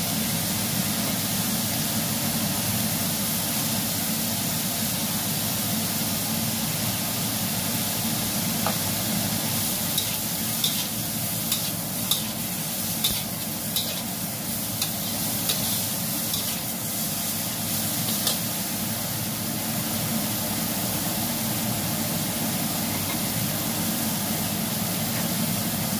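Broccoli and shrimp frying with a steady sizzle in a stainless steel wok. About ten seconds in, a metal spatula stirs the food, clicking and scraping against the wok about once or twice a second for several seconds.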